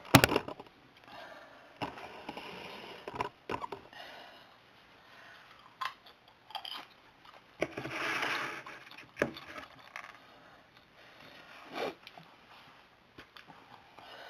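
Handling sounds around a bowl of popcorn: a sharp knock right at the start, a hand rustling through the popcorn about eight seconds in, and scattered small clicks and bumps in between.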